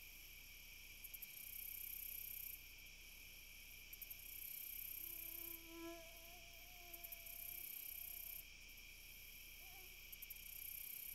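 Crickets and other insects singing: a steady trill, with a higher buzzing that starts and stops every few seconds. A faint drawn-out low call sounds briefly about halfway through.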